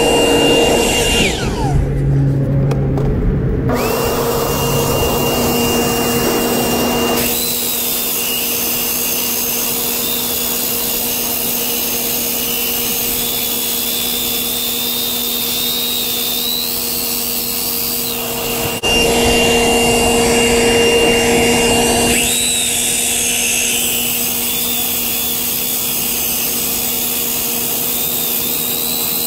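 Circular saw with a diamond blade cutting asphalt. Its motor whine stops about a second in and starts again a couple of seconds later. From about 7 s in the blade bites into the asphalt with a gritty grinding that runs over the whine, except for a few seconds near the middle when the saw runs free.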